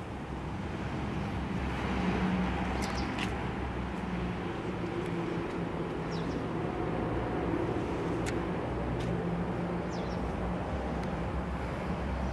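A steady low mechanical hum, like a motor running at a distance, with a few short high chirps.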